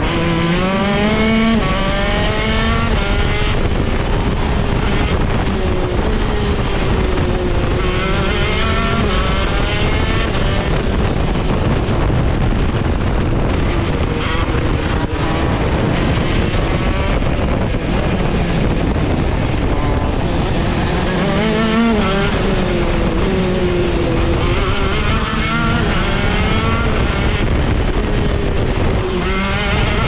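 Shifter go-kart engine at racing speed, its pitch climbing hard under acceleration and falling away into corners, over and over through a lap.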